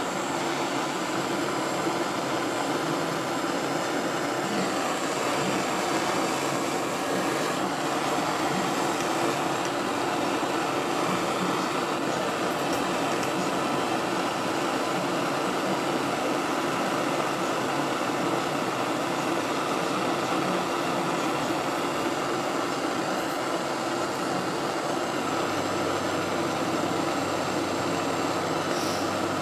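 Gas soldering torch flame burning with a steady hiss, heating a silver bracelet to melt the silver solder.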